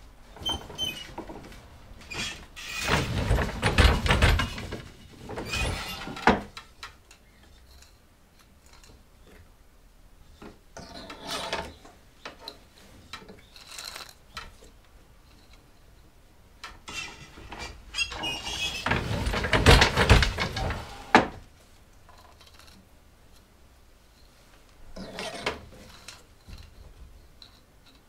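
Wooden hand loom being worked in twill weaving: wooden knocks, creaks and rattles of its moving parts. These come in two long busy stretches, about three seconds in and around twenty seconds, each ending in a sharp knock, with softer scattered clicks between.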